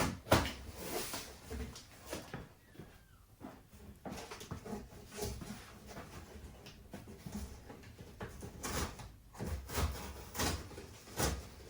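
A large cardboard shipping box being cut open with a knife and handled, heard as irregular scrapes, rustles and knocks.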